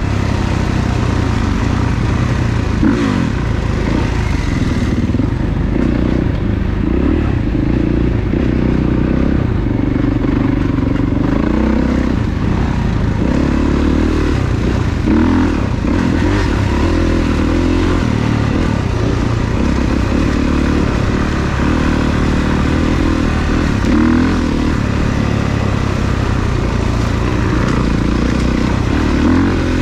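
Dirt bike engine being ridden on a trail, its revs rising and falling constantly as the throttle is worked, with clattering from the bike over rough ground.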